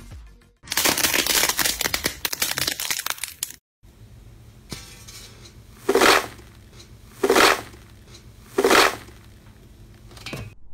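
About three seconds of dense crackling and crunching, then three short presses into a tray of coloured shaving foam strands, about a second and a half apart, each a brief squishing burst.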